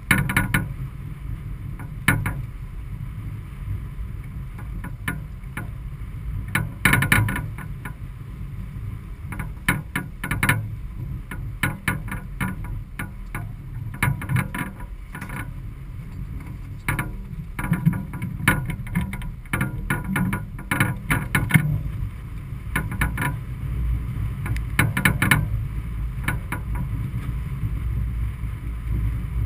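Sailboat under way: a steady low rush of wind and water, with irregular sharp knocks and clicks scattered through, thickest about a third of the way in until past two thirds.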